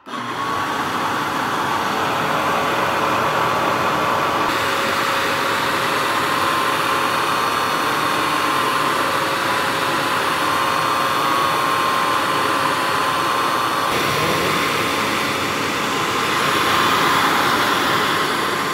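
Tineco iCarpet wet carpet cleaner running steadily as it is pushed over carpet: its suction motor gives a constant rush of air with a thin whine above it.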